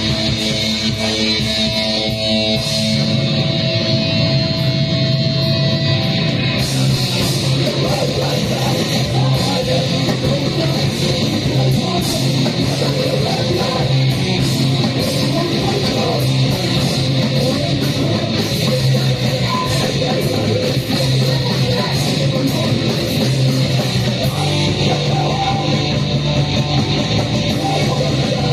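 A live rock band playing loud, guitar-driven music without a break, a few held notes at the start giving way to dense, full-band playing.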